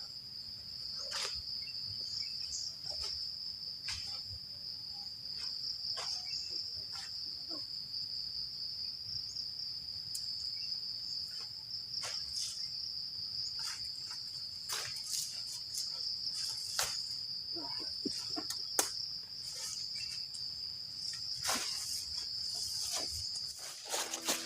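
Crickets chirring in one steady, unbroken high-pitched trill, with scattered light clicks and rustles over it; the trill stops shortly before the end.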